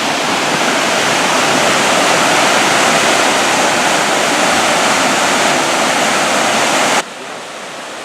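Waterfall at Hanging Lake: a loud, steady rush of falling water that drops suddenly to a quieter rush about seven seconds in.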